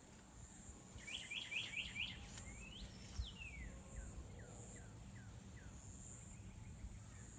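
A songbird singing: a quick run of about five rising notes, then one long whistle that climbs and falls, followed by a series of short falling notes. A steady high insect drone runs underneath.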